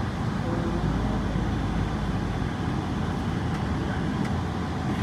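Steady engine hum and road noise of a moving vehicle, heard from inside its cabin.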